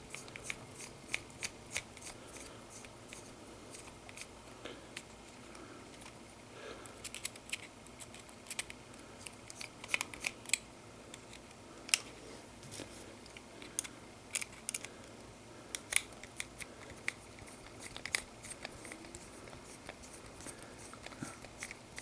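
Irregular light clicks and scrapes of a small screwdriver turning a tiny screw to remove the battery cover on a Losi Micro-T RC truck's plastic chassis.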